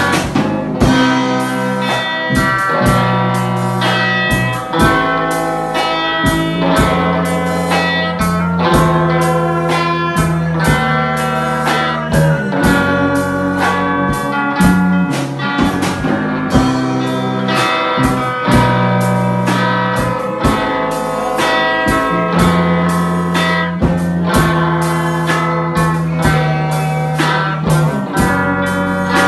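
Small live band playing an instrumental without singing: electric guitar over a drum kit keeping a steady beat, with a low bass line.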